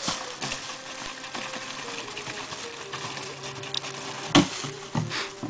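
Background music of held, stepping notes, with two sharp knocks near the end.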